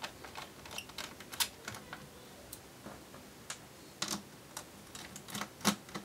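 Small Phillips screwdriver undoing the screws that hold a laptop's cooling fan: scattered light, irregular clicks and ticks of the bit turning in the screw heads and the screws coming free.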